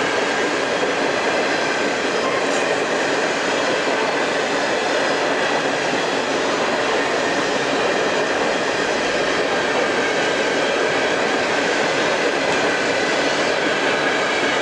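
Covered hopper cars of a long freight train rolling past close by: a steady rumble and rattle of steel wheels on the rail.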